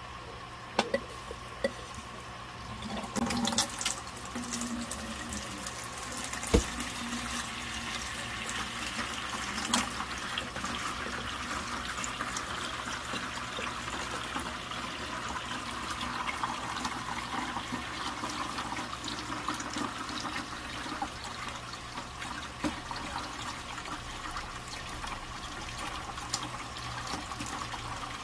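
Aquarium gravel-vacuum siphon drawing water out of the tank during a water change: a steady rush of water through the hose. A few sharp clicks come about a second in, and the water noise sets in about three seconds in.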